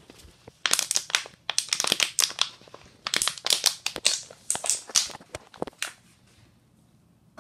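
Plastic water bottle with its cap screwed on crackling and crinkling as a baby grips and mouths it, in quick clusters that stop about six seconds in.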